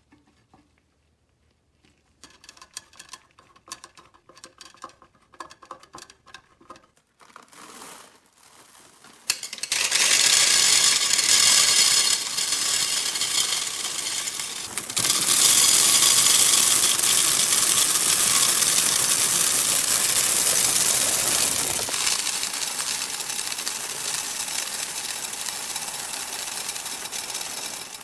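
Small scattered metal clicks and taps, then from about ten seconds in a long, loud, continuous rattle of M&M's candies pouring from a bag into the glass globe of a Northwestern Model 60 vending machine, the candies clattering against the glass and each other. The rattle is loudest in the middle and eases a little toward the end as the globe fills.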